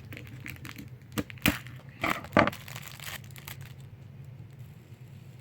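Plastic packaging of a fidget spinner crinkling and tearing as it is unwrapped, in a few short crackling bursts over the first three seconds, the loudest about two and a half seconds in.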